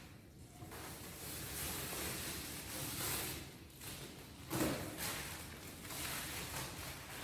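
Paintbrush strokes swishing across a canvas, one after another, with a louder bump about four and a half seconds in.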